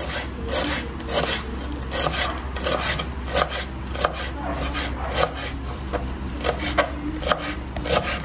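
Kitchen knife chopping fresh cilantro on a wooden cutting board: a steady run of strokes, the blade tapping the wood about twice a second.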